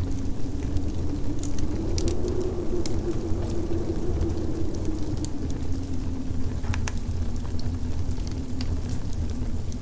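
Steady low rumbling noise with a slowly wavering hum in it and scattered sharp crackles.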